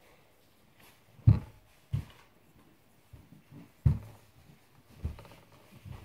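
Four dull thumps, spaced one to two seconds apart, with faint knocking between them.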